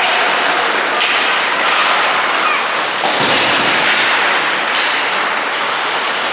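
Ice hockey game on the rink: a steady scraping hiss of skates on the ice, with two sharp knocks of stick, puck or boards about one second and three seconds in.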